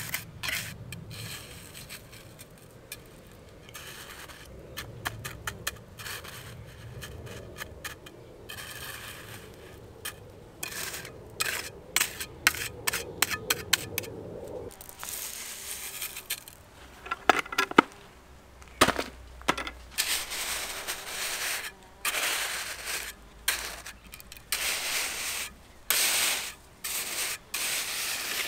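A small metal trowel scraping and stirring gritty gravel fill material in irregular strokes. A steady low hum lies under the first half and stops suddenly midway; the strokes after it are louder and more spaced out.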